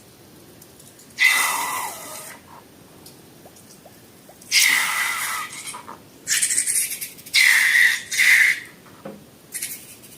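Air hissing out of a balloon's neck in five bursts, each with a squealing whistle on top of the hiss; the first starts about a second in and the last three come close together.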